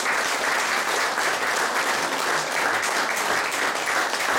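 Audience applauding: dense, even clapping at a steady level.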